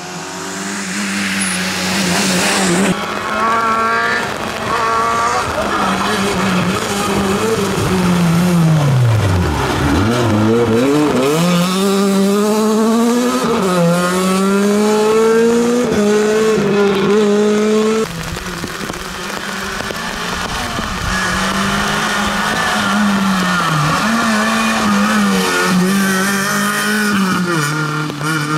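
Rally cars on a wet tarmac stage, engines revving hard and shifting through the gears one after another. The pitch climbs with each gear and drops sharply as a car brakes and shifts down, once falling very low about ten seconds in before revving up again.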